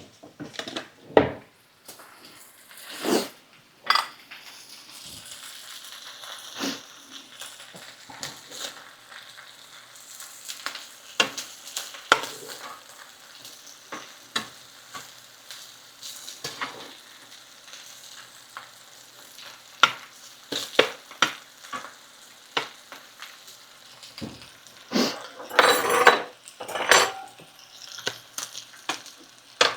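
French fries sizzling in hot frying oil, with utensils knocking and scraping against the pan now and then. A louder spell of clatter comes near the end.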